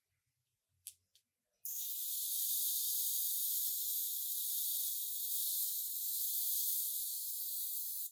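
Pressurised spray hissing steadily for about six seconds, starting sharply about a second and a half in and stopping abruptly, after two short clicks.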